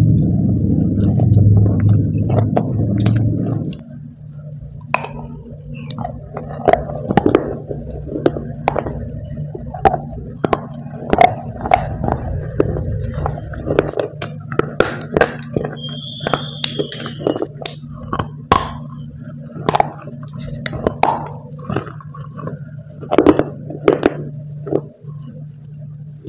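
Baked clay rolls being bitten and chewed: a long run of sharp crunches and crackling clicks. It opens with a few seconds of loud low rumbling.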